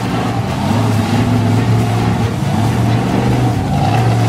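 Monster truck engine running loud and fairly steady as the truck drives, its pitch wavering a little with the throttle.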